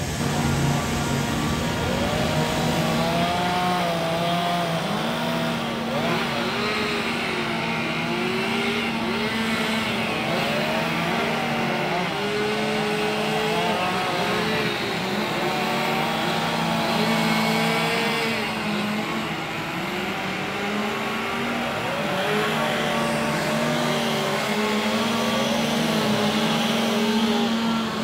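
Several two-stroke chainsaws running at once, their engines rising and falling in pitch as they rev and cut, over a steady low engine hum.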